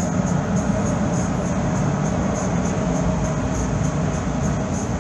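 Steady low engine rumble, heard from inside a car creeping along the enclosed steel car deck of a ferry.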